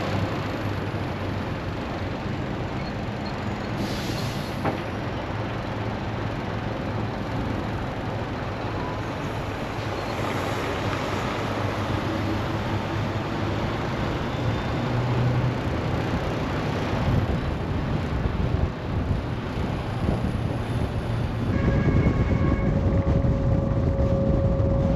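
Heavy-haul semi truck driving down the road with a loaded lowboy trailer: a steady mix of diesel engine drone and road noise. About 22 seconds in, a steady pitched tone joins and the sound gets louder.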